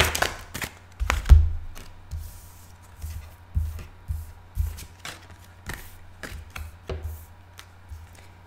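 A deck of tarot cards being shuffled and handled: irregular flicks and taps of the cards, with a few soft thumps, the loudest about a second in.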